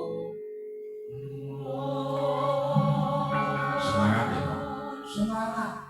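Javanese gamelan playing, with bronze metallophones ringing in sustained tones and a voice singing over the ensemble.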